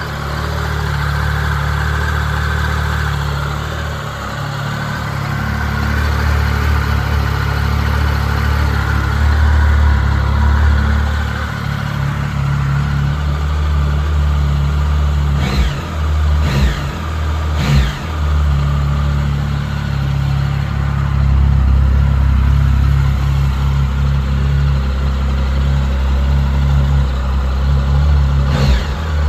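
2007 Triumph Tiger 1050's three-cylinder engine running steadily on its stock exhaust. Three quick, sharp changes in engine note come about halfway through, and two more near the end.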